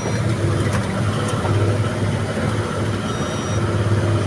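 Truck's diesel engine running steadily under way, heard from inside the cab as a constant low drone with road noise.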